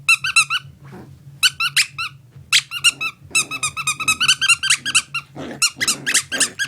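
Squeaky plush squirrel toy squeaking in quick runs of sharp, high-pitched squeaks with short pauses between, as a six-week-old chiweenie puppy bites and chews it.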